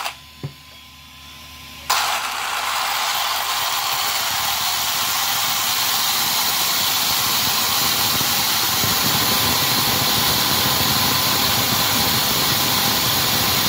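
Redcat Shredder RC truck's electric drive motor and geartrain running steadily at speed, starting suddenly about two seconds in after a small knock, and spinning the second can motor as an alternator.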